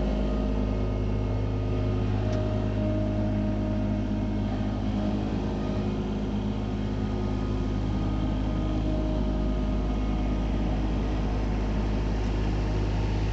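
Skid steer loader's engine running steadily as the machine drives along with a loaded bucket, its pitch and level holding even throughout.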